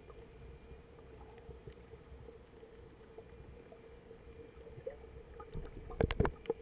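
Underwater reef sound through an action camera's housing: a low steady rumble and hum with faint scattered clicks, then a quick cluster of loud crackling clicks near the end.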